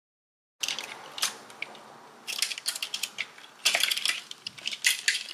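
Parts of a partly disassembled Maschine MK3 controller's plastic casing and circuit boards being handled, with a run of irregular small clicks, taps and rattles that starts abruptly after a moment of dead silence.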